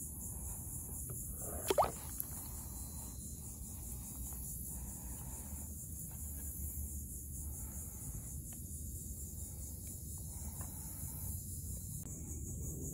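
Steady high-pitched chorus of insects in the wetland, with one short water plop about two seconds in as a hand works in the shallow water.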